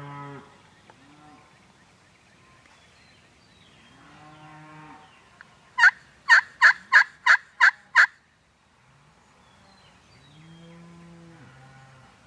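Cattle mooing three times, long low calls near the start, in the middle and near the end. Between them comes a loud series of seven sharp, evenly spaced turkey calls, about three a second.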